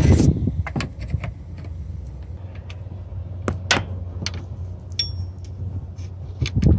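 2008 Honda Accord V6 engine running steadily with a low hum, with scattered clicks and knocks of handling over it.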